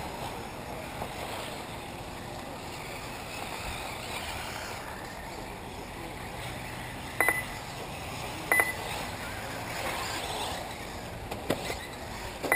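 Short electronic beeps from a lap-timing system, three of them: about seven seconds in, again a second and a half later, and at the very end, as 1/8-scale electric RC buggies cross the timing line. Between them runs a steady wash of outdoor noise from the track.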